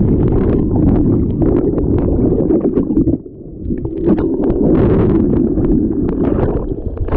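Wind buffeting the microphone, a loud low rumble that drops away briefly about three seconds in before picking up again.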